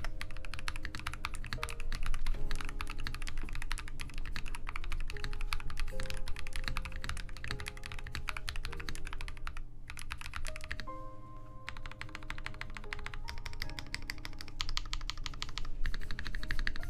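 Custom mechanical keyboard being typed on: a fast, continuous run of soft, creamy keystrokes, breaking off briefly about ten seconds in and again a little later.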